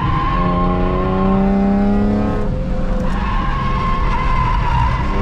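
BMW E46 M3's S54 straight-six under hard acceleration on track, rising in pitch for about two seconds before it drops away about halfway through. Then the tires squeal steadily through a corner.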